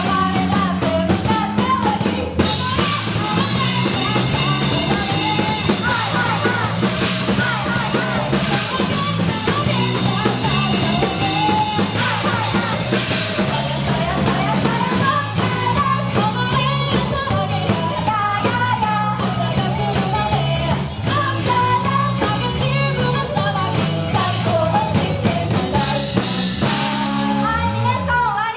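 Rock music with a full drum kit, steady bass and singing, cutting off suddenly near the end.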